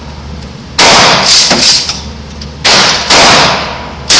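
Gunshots from a firearm at a shooting range: four loud shots, one about a second in, two in quick succession a little before three seconds, and one more right at the end, each ringing out briefly.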